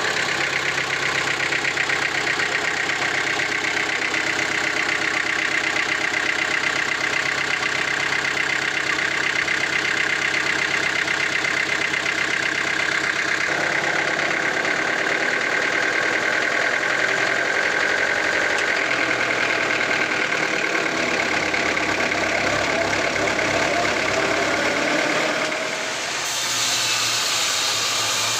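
Sawmill machinery running steadily with a continuous engine-like drone and a fine rapid pulsing, shifting in tone about halfway through and changing abruptly about two seconds before the end.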